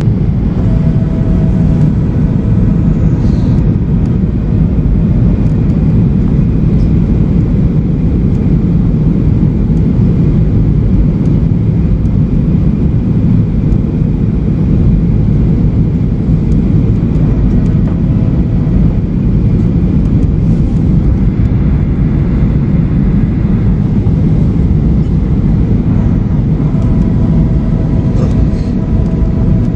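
Steady low roar of a Boeing 737-800 airliner's CFM56 jet engines and airflow on the landing approach, with a few faint steady whining tones.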